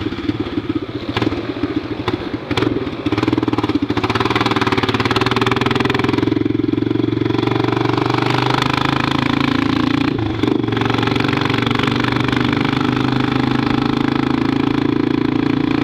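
Honda NX Falcon's single-cylinder four-stroke engine running through an aftermarket exhaust pipe while being ridden. It is uneven for the first few seconds, then settles into a steady, loud drone.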